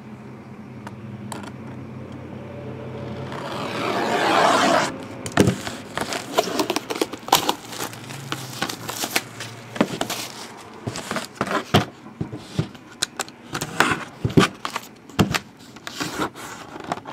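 Plastic shrink wrap on a cardboard box being cut with a utility knife and torn off, with a long rip building about four seconds in. After it comes crinkling plastic with many sharp, irregular clicks and scrapes as the box is handled and opened.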